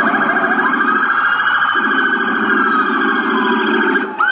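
US police car siren wailing: its pitch rises over about a second, then slides slowly down, over a steady harsh tone that drops out briefly about one and a half seconds in. Quick up-and-down sweeps begin at the very end.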